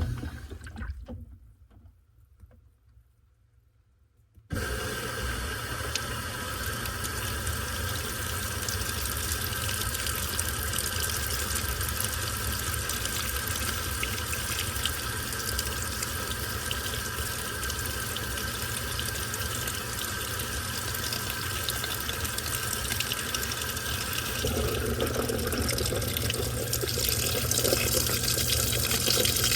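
Washing machine filling with water: after a loud click at the start and a few seconds of quiet, water starts rushing in abruptly about four and a half seconds in and runs steadily with a low hum. Near the end it grows a little louder and fuller.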